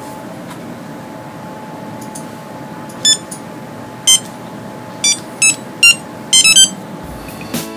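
Short electronic keypad beeps as buttons are pressed, first about one a second, then quicker, ending in a rapid flurry. A steady hiss lies underneath.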